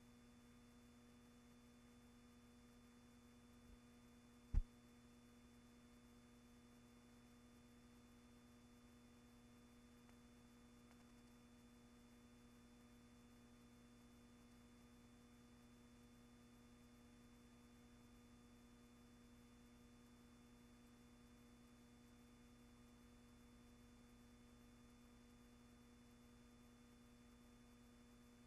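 Near silence: a faint steady electrical hum and hiss, broken once by a sharp click about four and a half seconds in.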